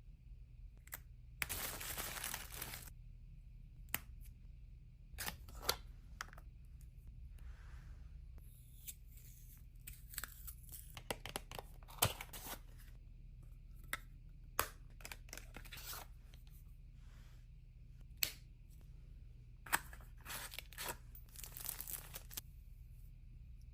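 Packaging being opened by hand: paper or plastic tearing and crinkling in short spells, with scattered sharp clicks and taps.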